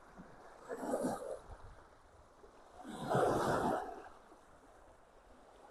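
Small waves of Loch Ness lapping at the shore in gentle swishes, one about every two and a half seconds.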